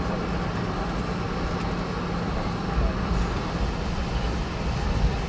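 Cabin noise inside a Boeing 717 taxiing on the ground: a steady hum from its rear-mounted Rolls-Royce BR715 engines over a low rumble that swells now and then.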